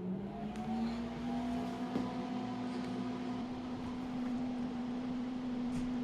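Small CNC router's machine and electronics just switched on: a steady hum with a fan-like whir. It comes up slightly in pitch just after the start, then holds at one steady tone.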